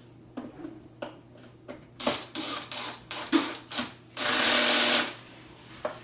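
Cordless drill-driver driving a cabinet door handle screw: a few clicks and short trigger pulses, then one steady run of under a second about four seconds in.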